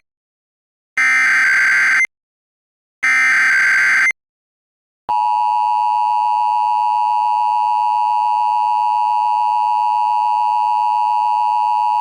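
Emergency Alert System tones for a Required Monthly Test. First the end of one SAME digital header burst, then two more harsh, buzzing data bursts, each about a second long and a second apart. About a second after the last burst, the steady two-tone EAS attention signal starts and holds.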